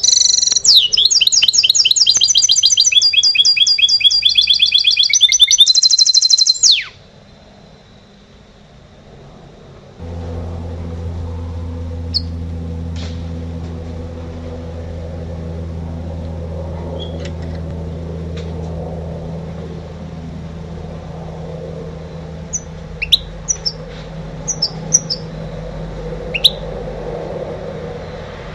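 A caged goldfinch × canary hybrid sings a loud, rapid trilling song for about the first seven seconds, then stops abruptly. About ten seconds in a steady low hum starts, and a few short chirps come near the end.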